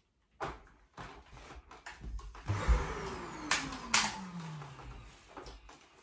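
Shark upright vacuum cleaner's motor winding down after being switched off, its hum falling steadily in pitch over about two seconds, with a couple of sharp clicks midway and lighter knocks of the machine being handled.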